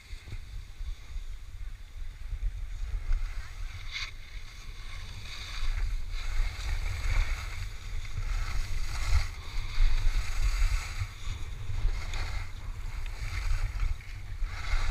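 Wind buffeting the microphone of a camera moving downhill on skis, a steady low rumble, with skis hissing and scraping over groomed snow in repeated swells as they turn.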